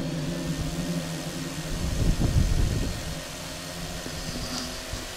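An engine idling: a steady low hum, with a louder stretch of low rumbling about two seconds in.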